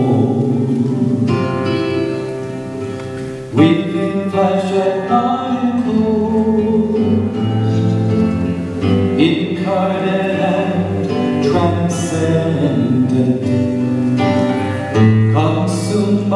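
A man singing a slow song while accompanying himself on an acoustic guitar, picked and strummed.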